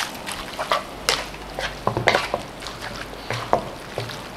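Wooden spatula stirring and tossing fettuccine in sauce in a nonstick frying pan over a gas flame: irregular clacks and scrapes of wood against the pan, with a light sizzle beneath.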